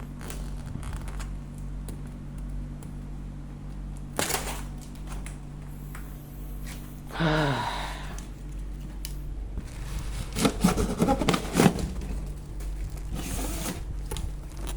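Scraping, knocking and clattering handling noises over a steady low hum, busiest from about ten to twelve seconds in, with a sharp knock about four seconds in.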